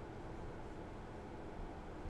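Faint steady hiss and low hum of a desk microphone's room tone, with no distinct sound event.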